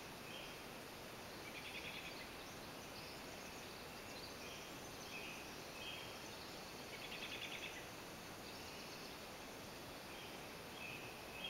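Several birds singing: short chirped phrases repeating throughout, with a rapid trill about two seconds in and another near the middle, over a steady background hiss.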